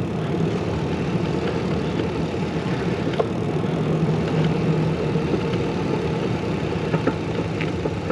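Steady rumbling wind and rolling noise from a bicycle towing a caravan trailer downhill, with a few faint clicks.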